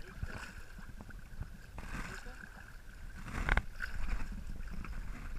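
Small fishing boat on the water: low rumble and light knocks against the hull, with one louder sudden knock about three and a half seconds in, over a faint steady high whine.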